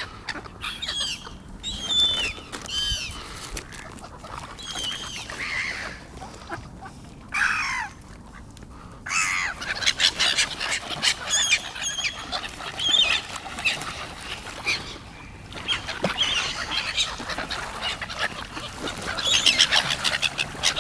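A flock of black-headed gulls calling, many harsh, overlapping screeching calls in bursts with short lulls, as the birds crowd and squabble around the pond.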